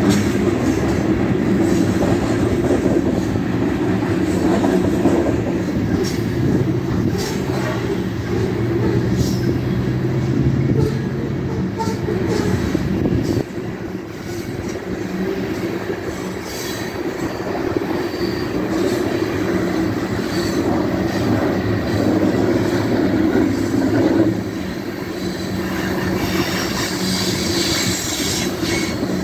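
Loaded coal cars of a Union Pacific freight train rolling past, their steel wheels on the rails making a steady rumble with scattered clicks and some wheel squeal, the high-pitched sound growing brighter near the end.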